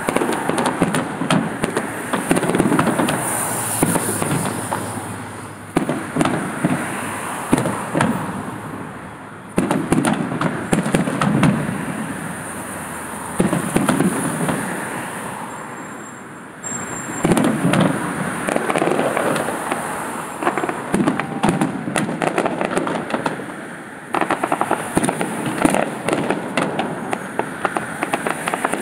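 Fireworks display: aerial shells bursting in quick succession, with sharp bangs and dense crackling. A fresh loud volley starts every few seconds and fades between.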